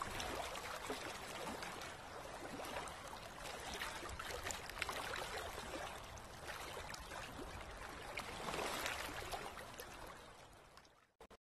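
River water flowing and lapping as a steady rushing noise, fading out just before the end.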